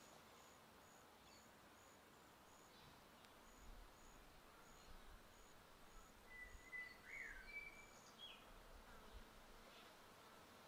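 Near silence with faint outdoor ambience: a high-pitched insect chirp repeats about twice a second, and a few short bird whistles come through about six to eight seconds in.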